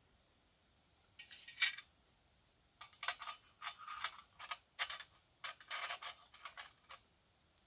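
Small metal lamp parts clinking and scraping as a perforated metal burner cup is fitted over the burner on the lamp's base: a brief clatter about a second in, then a run of light metal clicks and taps.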